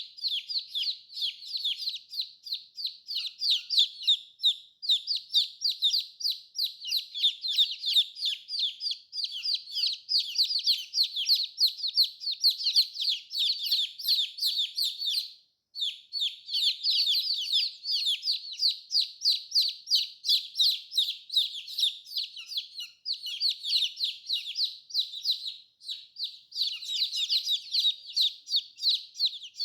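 Baby chicks peeping constantly, a dense overlapping stream of high, quick falling chirps, with a brief pause about halfway through.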